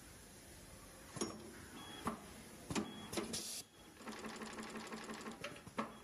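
Automatic multi-core wire stripping machine working a cable: a series of sharp mechanical clacks from its clamping arm and tooling, a short hiss about three seconds in, then a fast, even rattling run lasting over a second, followed by two more clacks.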